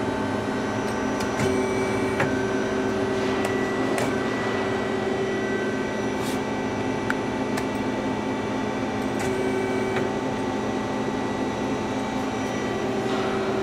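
1988 Mazak Quick Turn 8 CNC turning center running a stored program. It gives a steady machine hum and whine made of several tones, some of which switch on and off as the machine works, with a few light clicks.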